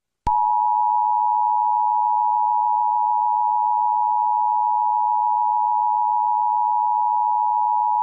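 Emergency Alert System attention tone: one steady, unbroken electronic tone that starts with a click about a quarter second in.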